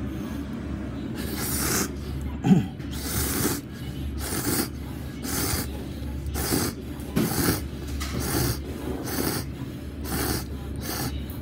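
A person slurping ramen noodles in a quick series of about ten short slurps.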